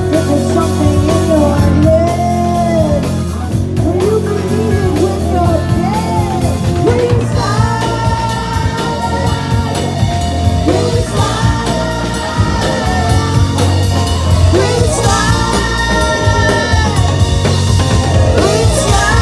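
Live rock band playing loud amplified music: electric guitars, bass, drums and keyboard, with singing. A wavering melodic line runs through the first several seconds, then held chords repeat every couple of seconds over the drums.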